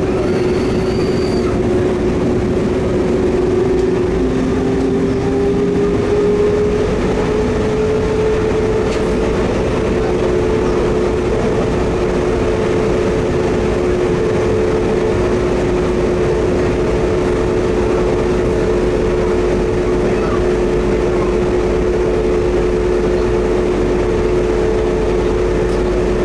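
Bombardier Innovia APM 256 rubber-tyred people-mover train running at speed, heard from inside the front car. A steady motor whine rides over running noise, and one strand of the whine rises a little in pitch about five seconds in, then holds.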